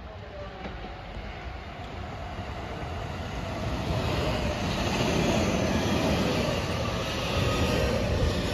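An electric commuter train running into the station on the near track. Its rumble and wheel noise swell about four seconds in as the cars pass close by, with a faint steady whine underneath.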